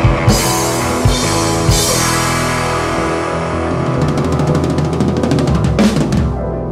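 Blues-rock band of electric guitar, bass guitar and drum kit playing the instrumental ending of a song. A fast drum roll from about four seconds in builds to the final hit, which lands right at the end with a cymbal crash left to ring.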